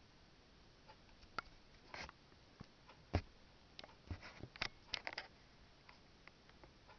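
Faint, scattered handling clicks and small knocks, with a single louder thud about three seconds in and a quick run of clicks a little after four seconds.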